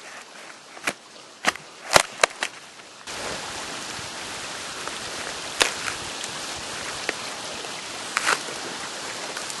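Four or five sharp knocks, then about three seconds in a steady hiss starts suddenly and runs on, with a few scattered knocks over it.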